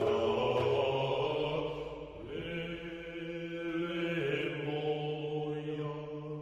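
Slow, chant-like singing of long held notes over a steady low tone, the notes shifting about two seconds in and again about four seconds in, growing quieter near the end.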